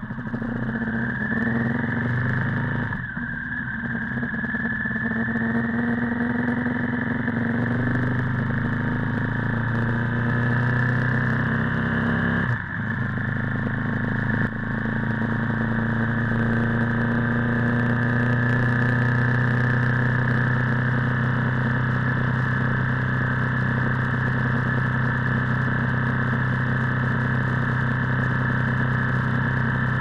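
Honda VTR1000F's 996 cc V-twin engine heard close up while riding. The pitch rises as it pulls away, breaks briefly about 3 s and 12.5 s in at gear changes, then holds a steady note as the bike cruises.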